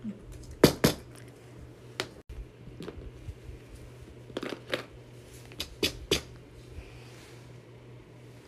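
Fidget toys being handled: about nine sharp clicks and snaps, in pairs and small groups, with quiet handling noise between them.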